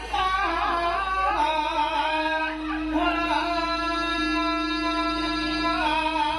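A singer in Javanese style holding long, wavering notes with sliding ornaments over a steady sustained accompanying tone. The melody moves to new held notes several times.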